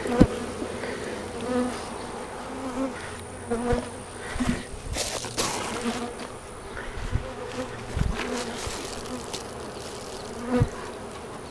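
Honey bees buzzing around an open hive, the hum swelling and fading as they fly past, with a few sharp knocks from handling the hive partway through.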